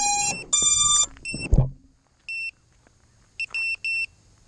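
Electronic beeps from a 5-inch FPV quadcopter sitting powered up before take-off. A quick run of tones at several different pitches comes first, with a knock about a second and a half in. Then short single high beeps, all at the same pitch, repeat at uneven gaps.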